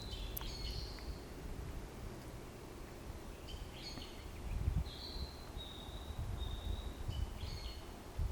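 Forest birds singing in several short phrases of high notes, with a run of steady whistled notes in the middle, over a low rumble.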